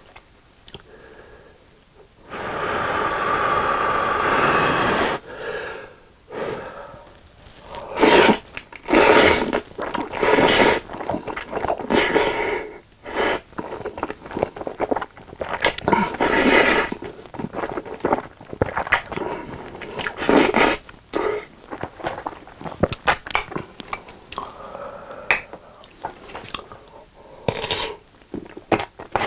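Close-miked slurping and chewing of carbonara buldak spicy stir-fried instant noodles: one long slurp of about three seconds near the start, then a run of shorter slurps between wet chewing sounds.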